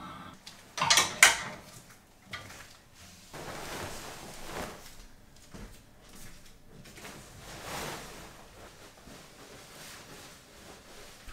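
Wardrobe and bedding being handled: a sharp clatter from the wardrobe about a second in, then soft rustling of fabric as a duvet and pillows are straightened.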